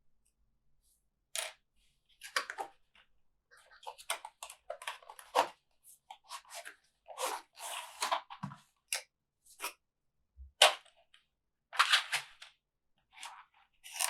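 Keycaps and keyboard parts being handled: irregular short clicks and scrapes of plastic, in clusters of a second or less.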